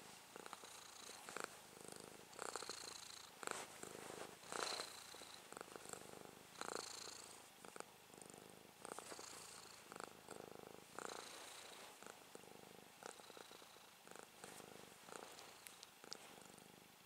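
Domestic cat purring while its chin and cheeks are scratched, the purr swelling and fading about once a second. Soft rustles and clicks of fingers working through its fur come close to the microphone.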